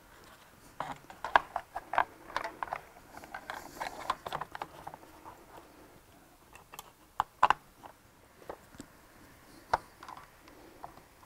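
Top cover of a CVT transaxle being fitted and pressed into place by hand: a run of light clicks and taps over the first few seconds, then a few sharper clicks about seven and a half seconds in and one more near the end.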